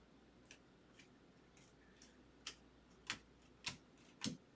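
Near silence with scattered light clicks and taps, the louder ones coming about every half second in the second half: trading cards being flipped and handled on a table.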